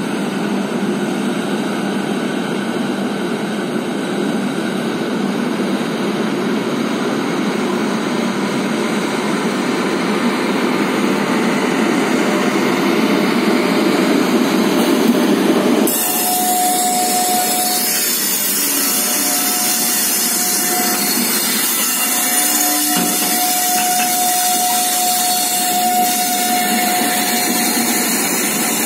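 Electric freight locomotive passing close by with a loud, steady mechanical drone. About halfway through the sound changes abruptly as the car-carrier wagons roll past, with a high steady wheel squeal coming and going over the rolling noise.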